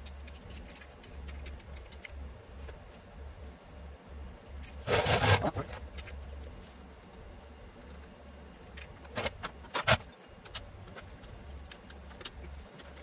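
Small metallic clinks and rattles of hand tools and engine parts as the carburetor is worked off a 125cc Taotao ATV engine, with a louder burst of rattling about five seconds in and two sharp clicks near ten seconds. A steady low hum runs underneath.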